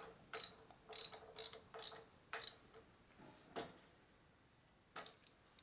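Hand ratchet wrench clicking as a fork fastener is turned in: about six sharp metallic clicks in the first two and a half seconds, then a few fainter ones.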